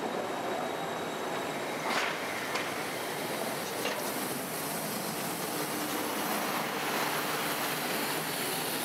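A low-floor tram rolls away along street track, with a few sharp clicks a couple of seconds in. Then a MAN natural-gas articulated city bus drives past close by, with a slight rise in loudness as it goes.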